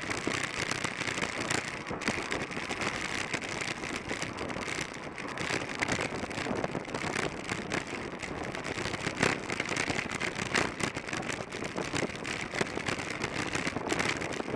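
Steady rush of wind buffeting a bike-mounted camera's microphone at about 25 mph, mixed with the hiss of track-bike tyres on the concrete velodrome, with small irregular gusts and knocks throughout.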